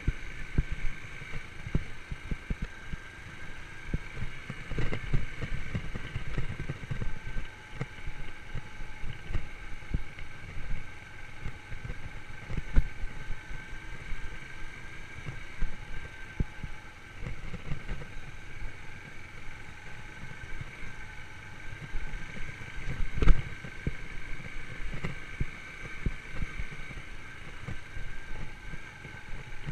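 Yamaha YBR125's single-cylinder four-stroke engine running at a steady pitch while riding, with frequent irregular low thumps and knocks from the bike over rough ground. The sharpest knock comes about 23 seconds in.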